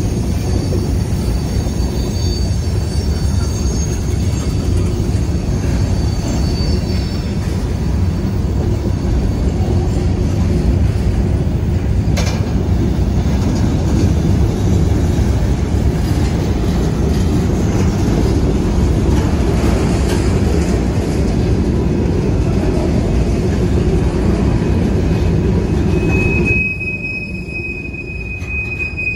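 Freight train of covered hopper cars rolling past: a steady rumble of wheels on rail, with faint high wheel squeal in the first few seconds and one sharp clank about twelve seconds in. Near the end the rumble suddenly drops off and a single steady high wheel squeal carries on.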